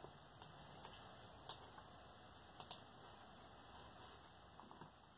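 A few scattered soft clicks from working a computer's keyboard and mouse, about eight in all at uneven intervals, the loudest about one and a half seconds in.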